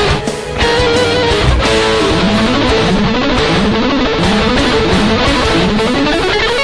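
Instrumental background music led by guitar. It briefly drops in level about half a second in, and from about two seconds in a run of short rising pitch slides repeats roughly twice a second.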